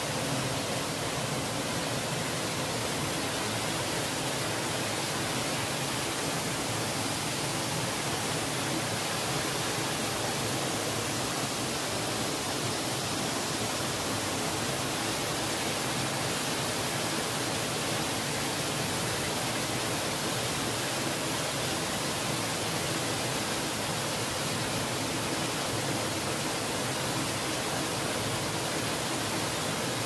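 A waterfall about 8 to 10 metres high pouring into a rock-walled plunge pool: a steady, even rush of falling water.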